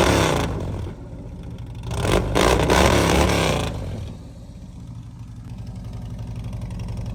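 2009 Harley-Davidson Road King's V-twin running through newly fitted fishtail exhaust pipes. A throttle blip falls away in the first second, another rises and falls about two to four seconds in, and then the engine settles to idle.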